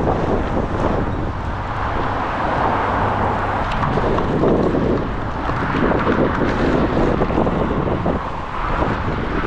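Strong gusty wind from a thunderstorm gust front buffeting the microphone, a loud rush that swells and eases every second or two.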